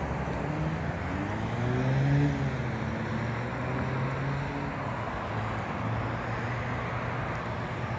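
Road traffic: car engines and tyre noise, with one car passing a little louder about two seconds in, its engine pitch rising and then falling.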